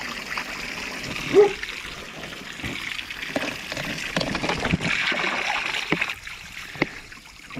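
Water splashing and trickling in a drum as a garden hose pours into it around an outboard motor's lower unit. A brief pitched blip about a second and a half in is the loudest moment.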